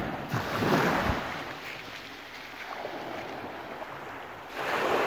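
Small waves washing in over a sand-and-shingle beach, with wind buffeting the microphone; the wash swells up about half a second in and again near the end.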